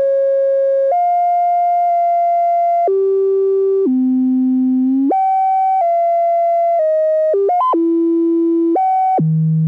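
Synthesizer oscillator tone stepping to a new random pitch about once a second, each change a short glide rather than a clean jump, with a quick flurry of changes about three quarters through. Its pitch is set by the Make Noise Richter Wogglebug's smooth random voltage, with its slew rate set by an external clock.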